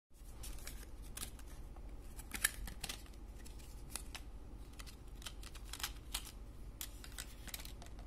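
Irregular sharp clicks and crackles of a thin plastic clamshell tray being handled and pried open to take out a laptop RAM module, the loudest snap about two and a half seconds in, over a low steady hum.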